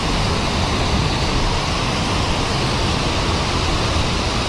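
Steady, loud rushing of white water from a mountain stream cascading over rocks close by.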